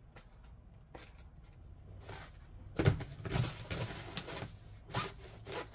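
Cardboard and foam packaging rustling and scraping, with a series of sharp knocks, as a foam-wrapped e-bike is pulled out of its shipping box. The sounds start about halfway in; the loudest knock comes first.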